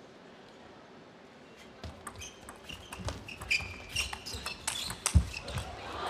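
Table tennis rally: the ball clicking rapidly off bats and table, starting about two seconds in, with short squeaks and a heavy thud near the end.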